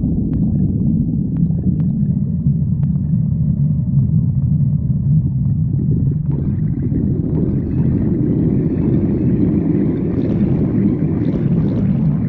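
Human stomach growling: a continuous low rumble that broadens and grows brighter from about halfway through.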